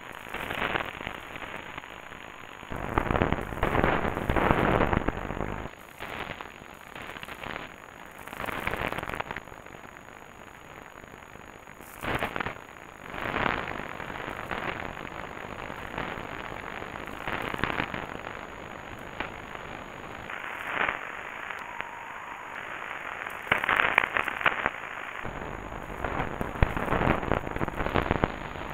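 Lightning static on an AM radio receiver: irregular bursts of crackling and crashing noise over a steady hiss, one every few seconds, some brief and some lasting a couple of seconds. Each crash is the radio picking up a lightning discharge from a thunderstorm.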